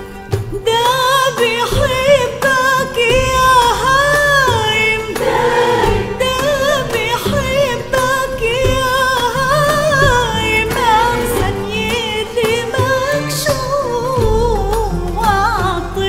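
A woman singing a solo line with winding, ornamented pitch, accompanied by an Arabic ensemble of violins, frame drums, qanun and oud.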